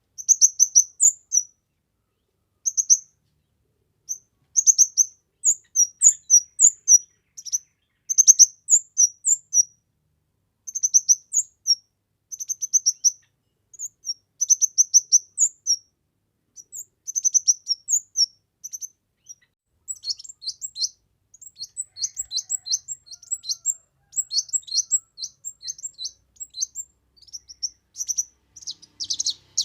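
Kemade bird singing vigorously: bursts of high, sharp chirps with short pauses between them, turning into faster, denser runs of rapid notes from about twenty seconds in.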